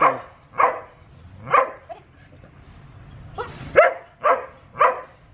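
Border Collie barking: short, sharp barks about two a second, in two runs with a pause of a little over a second in the middle.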